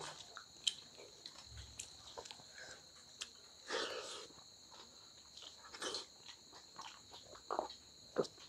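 Two people eating rice and dal with their hands from steel plates: soft chewing and mouth smacks with small scattered clicks, and a sip of water from a steel tumbler about four seconds in.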